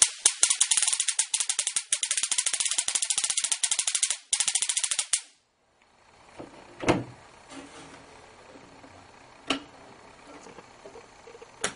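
95,000-volt stun gun arcing across a switch's brass terminals: a rapid electric spark crackle for about five seconds that cuts off suddenly. A few separate clicks follow later.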